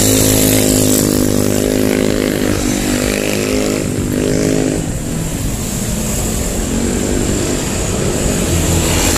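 A motorcycle engine running on the road, its note fading about five seconds in, over steady street traffic.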